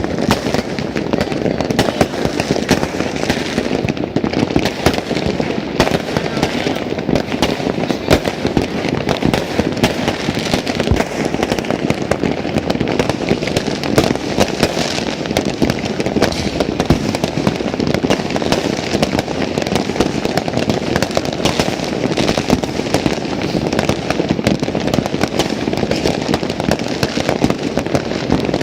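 New Year's fireworks going off all around in a dense, continuous barrage: countless overlapping bangs and crackles with no pause between them.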